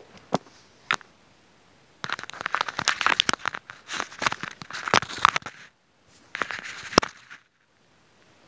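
Shiny plastic packaging bag crinkling and crackling with many sharp clicks, in two long bursts after a few single clicks.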